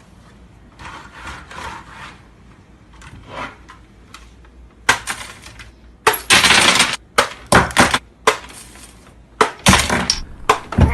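A run of loud, sudden crashes and clatters, starting about five seconds in, one lasting nearly a second, with more near the end.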